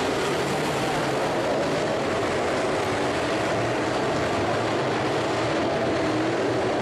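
A pack of dirt-track modified race cars at racing speed, their engines blending into a steady drone with a faintly wavering pitch.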